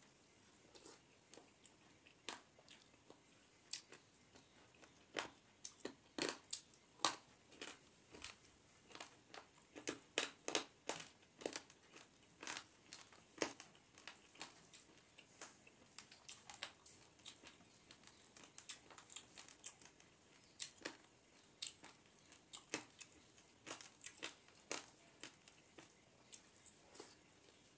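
Close-miked eating with the mouth: chewing and lip-smacking heard as a run of irregular wet clicks and small crunches, busiest in the middle and again near the end.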